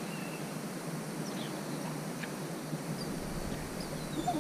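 Quiet outdoor ambience on the water, with a few faint short high chirps scattered through it.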